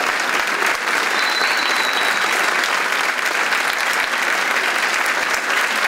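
Theatre audience applauding steadily: dense, continuous clapping for a ballet solo's curtain bow.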